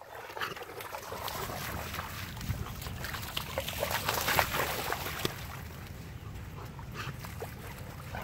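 A German Shepherd and a Blue Bay Shepherd splashing and running through shallow river water at the shoreline as they play. The splashes come as a busy jumble and are loudest about four seconds in, when one dog leaps through the water, then they thin out.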